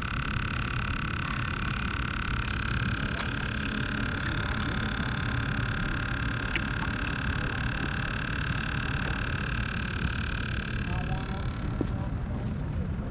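A steady motor hum with a constant high whine over a low rumble, which fades out near the end.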